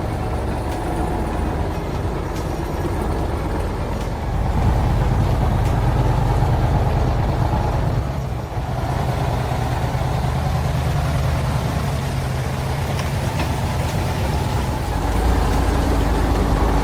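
Logging truck's engine running steadily with a deep hum, working harder about four seconds in and again near the end, with a short dip in between.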